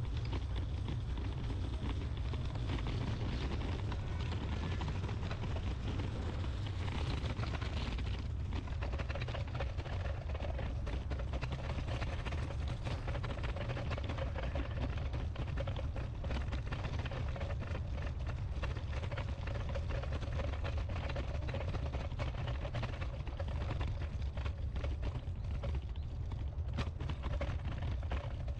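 Footsteps of someone walking, over a steady low rumble; a faint steady hum comes in about eight seconds in.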